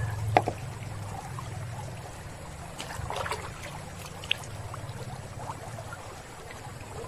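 Stream water running steadily, with a sharp click about half a second in and a few faint scratches and taps in the middle.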